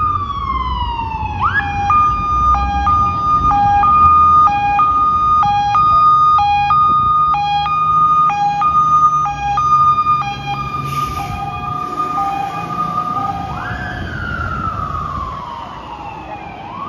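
Fire engine's electronic siren, over the rumble of its engine. It opens on a falling wail, switches to the hi-lo two-tone, alternating high and low about once a second for some eight seconds, then goes back to a slow wail that rises and falls. A brief hiss comes about eleven seconds in.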